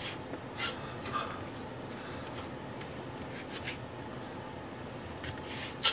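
Kitchen knife slicing pork belly on a plastic cutting board: a few scattered soft taps and clicks of the blade meeting the board, the sharpest near the end, over a steady low background hiss.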